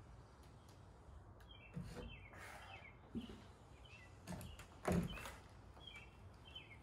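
Ice tools and boots knocking on a climbing wall's holds during a dry-tooling move: a handful of separate thuds, the loudest about five seconds in, among short high chirps.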